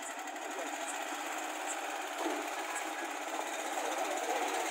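Swaraj Code 12 hp compact tractor's engine running with a fast, even beat under load as the tractor climbs a steel loading ramp, getting a little louder near the end.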